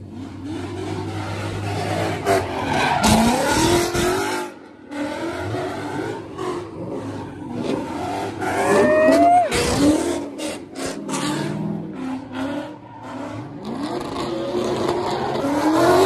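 A Ford Mustang doing donuts: its engine revs up hard again and again while its tyres spin and squeal on the asphalt. It is loudest about three seconds in, around nine seconds and near the end, with brief drops as the revs fall.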